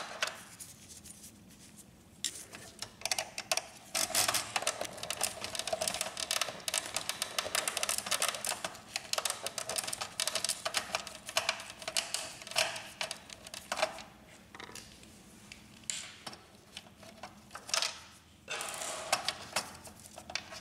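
Hands working a dismantled inkjet printer's plastic and metal parts: a long run of rapid clicks and scrapes as the metal plate and the small sensor behind it are unclipped, thinning out for a few seconds before a short burst of clicks near the end.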